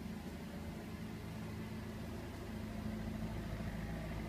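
Car engine idling with a steady low hum.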